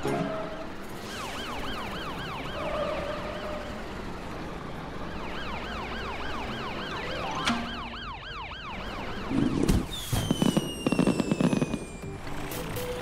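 Ambulance siren in a rapid, repeating up-and-down wail. About ten seconds in it gives way to a louder, choppier passage with a single falling whistle.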